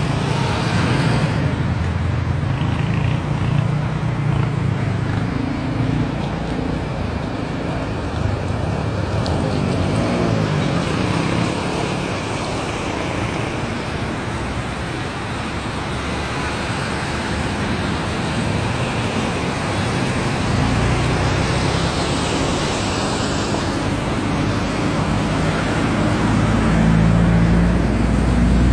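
Steady road traffic noise on a flooded street: vehicle engines running under a continuous hiss, with the low engine hum growing louder in the last few seconds.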